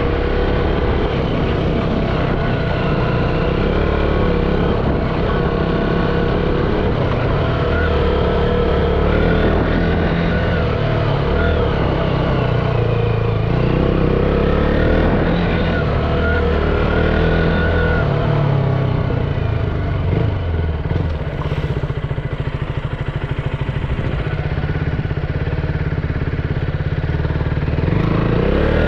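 KTM 200 Duke's single-cylinder four-stroke engine running under way, its note rising and falling as the rider accelerates and eases off, with a dip around two-thirds of the way through and a climb in pitch near the end.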